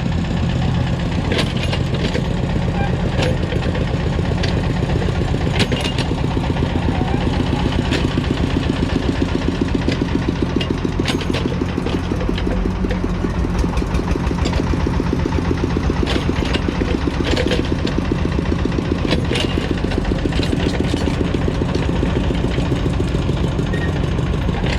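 Diesel engines of an excavator and a single-axle farm truck running steadily, with a fast, even chugging pulse. Sharp knocks come here and there throughout.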